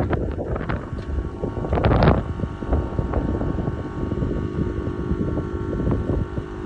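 Strong wind buffeting the microphone: a continuous low rumble with uneven gusts, and a stronger gust about two seconds in.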